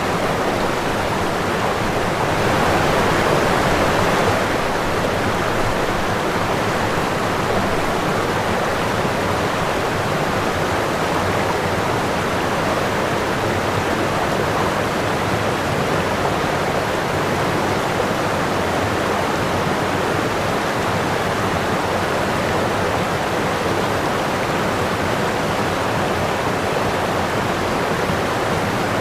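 Running water, a steady even noise that swells a little louder for a couple of seconds about two seconds in.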